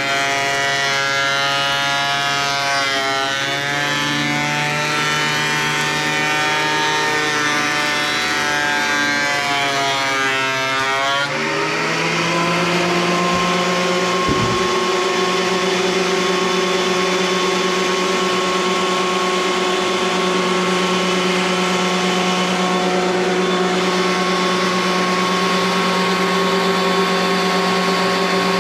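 Craftsman thickness planer running with a board feeding through: its motor pitch sags and wavers under the load of the cut. About eleven seconds in, the pitch rises and settles into a steady whine as the machine runs free. A short knock follows a few seconds later.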